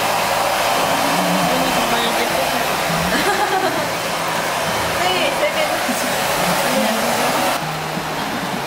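Steady, loud rushing of blown air, with faint voices beneath. The hiss drops away abruptly about a second before the end, leaving a duller sound.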